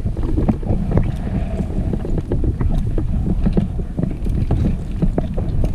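Wind buffeting the microphone in a steady low rumble, with a scatter of small, sharp clicks and knocks throughout.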